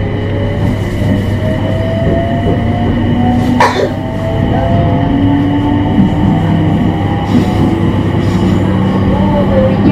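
E721-0 series EMU's Mitsubishi IGBT VVVF inverter and traction motors, heard from inside the car, whining with tones that climb slowly as the train gathers speed, over a steady low rumble. A single sharp clack comes about three and a half seconds in.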